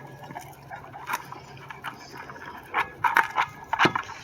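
German shepherd puppies scuffling at play: scattered short rustles and knocks, busier about three seconds in.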